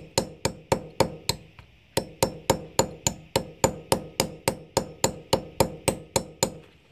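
Hammer tapping a nail held against a brick, light sharp strikes at about four a second with a short pause near the two-second mark. It is chipping small starting indentations in the brick so the masonry drill bit won't wander.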